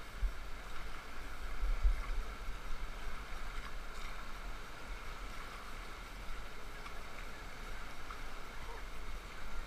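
Steady rush of whitewater rapids, with a few low thumps in the first two seconds.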